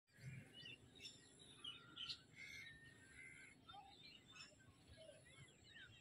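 Faint chorus of small birds chirping: many short, quick calls overlapping.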